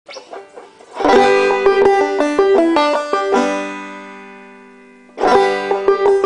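Five-string banjo being picked: a quick run of plucked notes from about a second in, a chord left to ring and fade away, then the picking starts again near the end.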